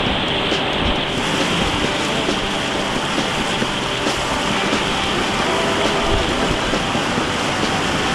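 Rushing white water of river rapids, a steady dense noise of churning water close to the microphone.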